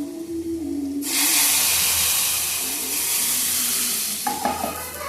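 Food frying in a hot pan: a loud sizzle breaks out suddenly about a second in and keeps going.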